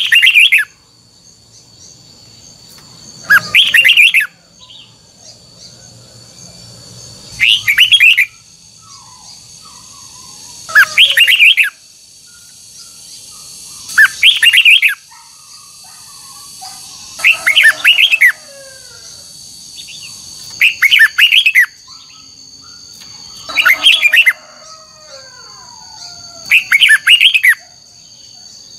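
Red-whiskered bulbul singing short, loud, rapid phrases, one about every three and a half seconds. Softer falling chirps from other birds come in between, over a steady high-pitched hum.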